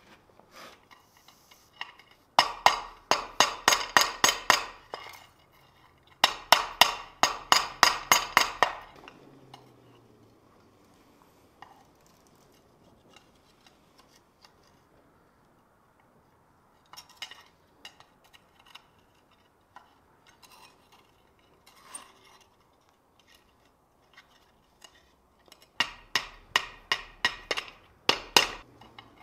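Blacksmith's hammer striking a hot steel bar on a steel plate laid over an ice anvil: three runs of rapid blows, about five a second, with scattered clinks of tongs and tools between them.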